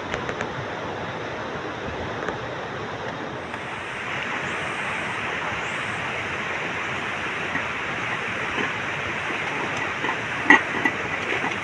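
Steady rushing noise that brightens a little a few seconds in, with a few short sharp clicks near the end.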